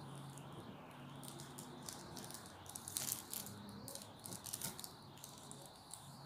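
Tailor's chalk scratching along the edge of a paper pattern on cotton fabric, with the paper rustling under the hand. Faint, with a few louder scratchy strokes about three seconds in and again near five seconds.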